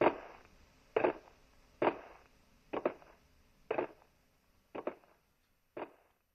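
Heavy footsteps, about one a second, growing fainter as the walker moves away: a giant's plodding steps as he leaves.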